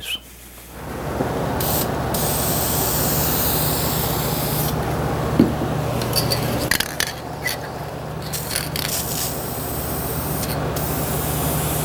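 Aerosol can of Minwax urethane spray varnish hissing in long passes with a few short breaks, as the finish coat is sprayed onto a wooden chair frame.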